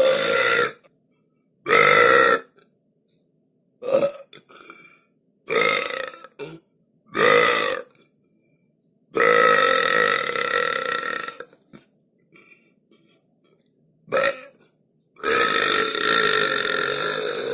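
A string of about eight separate burps, some short and some drawn out for two seconds or more, with dead silence between them.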